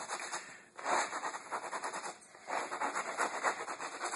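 Shoe sole scraping and grinding kitty litter into an oil spot on a concrete floor, in gritty back-and-forth rubbing strokes of about a second each. The litter is being worked in to soak up the oil.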